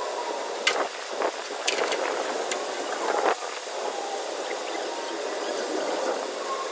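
A steady rushing noise with four sharp clinks in the first half.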